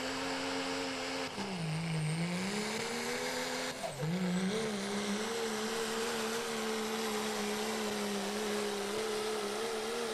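The inline-six Cummins turbo-diesel of a 2012 Dodge Ram 4x4 pulling truck runs flat out under the heavy load of a pulling sled. The engine note sags and recovers once about two seconds in, dips sharply and recovers about four seconds in, then holds steady.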